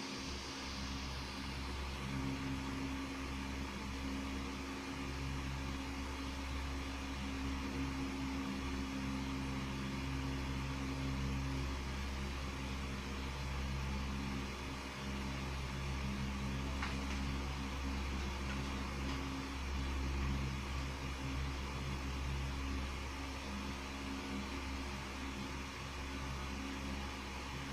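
Steady machine hum with a hiss, holding at one level throughout, with one faint click about two-thirds of the way through.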